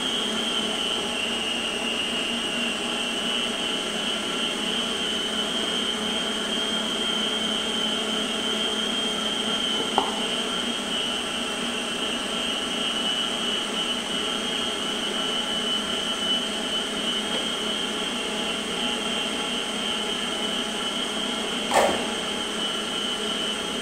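Electric kitchen mixer running steadily at one speed, beating cake batter of flour and siriguela pulp, with a steady high whine over its motor hum. Two short knocks come about ten seconds in and near the end.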